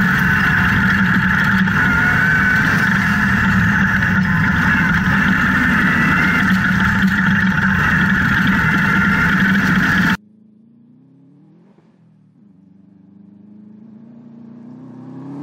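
Subaru-engined off-road buggy heard from the cockpit, its engine and gravel road noise making a loud, steady drone. About ten seconds in it switches to the buggy heard from the roadside, faint at first, then growing louder as it approaches, its engine note climbing in pitch.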